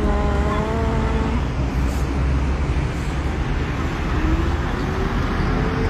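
Steady low rumble of road traffic, with coach buses running on the road. A held pitched tone that steps slightly down in pitch fades out about a second and a half in.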